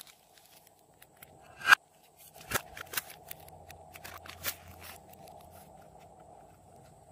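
Hands handling soft clay and small plastic makeup containers over a slime bowl: one sharp, loud click a little under two seconds in, then several lighter clicks and taps.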